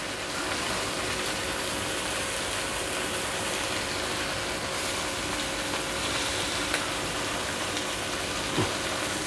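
Chicken shashlik skewers sizzling steadily in a hot pan, with a few light clicks and pops over the even hiss of the frying.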